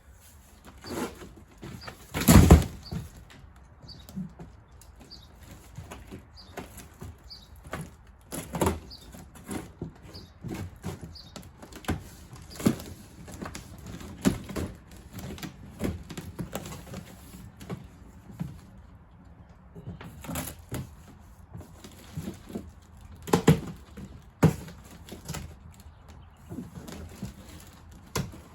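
Cardboard packaging and parts being handled: irregular rustling and flapping with scattered knocks, and a loud thump about two seconds in.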